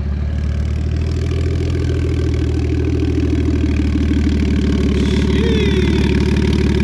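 Car engine idling close by, a steady low rumble that grows slightly louder, with a short squeak about five seconds in.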